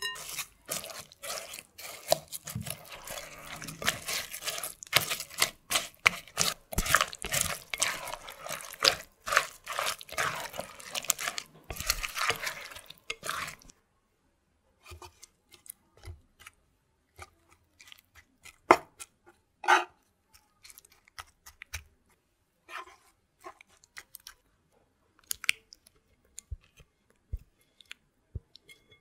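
Thin apple slices being mixed through cake batter in a bowl: dense wet squelching and crackling for about fourteen seconds. After a brief silence, scattered wet plops and light taps follow as the batter-coated apple slices are tipped into a metal loaf pan.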